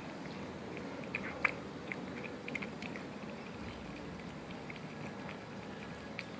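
A pet chewing papaya: scattered small, wet chewing clicks, with one sharper click about 1.4 seconds in.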